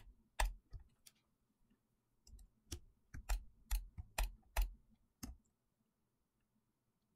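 Computer mouse clicks picked up by a desk microphone: about a dozen sharp clicks, each with a dull thump, in two loose runs, stopping about five seconds in.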